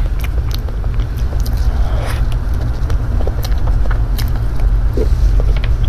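Eating a soft cream cake with a plastic spoon: small scattered clicks of the spoon and mouth sounds of biting and chewing, over a steady low rumble that is the loudest thing throughout.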